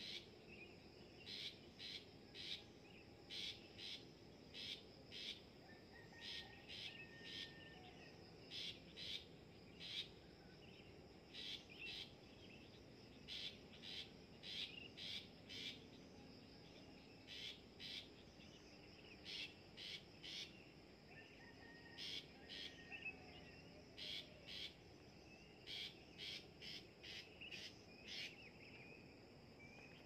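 Long-tailed shrike (pentet) calling: short, sharp notes in quick clusters of two to four, repeated about once a second, over a steady high-pitched background hum.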